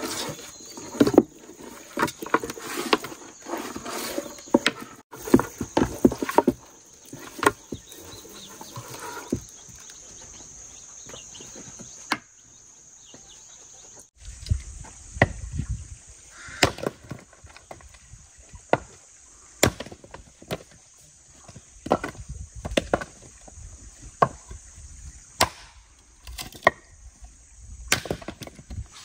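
Hands rubbing and squeezing a raw whole chicken coated in spices in a wooden tub: quick wet squelching and slapping. Partway through this gives way to a hatchet splitting firewood on a chopping stump, with sharp wooden chops a second or more apart.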